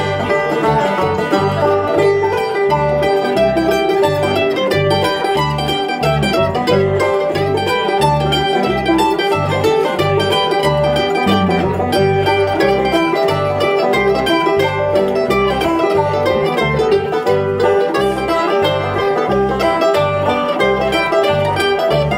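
Bluegrass band playing: banjo and mandolin picking over a bass guitar keeping steady bass notes about two a second.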